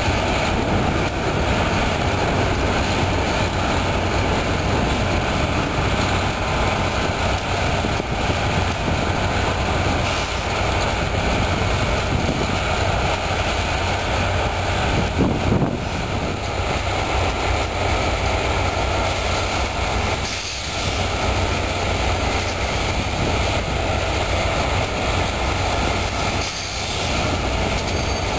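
Plasser & Theurer 08-275 ballast tamping machine at work: its diesel engine and tamping gear run in a loud, steady mechanical noise with a low hum underneath, easing briefly twice, about twenty and twenty-six seconds in.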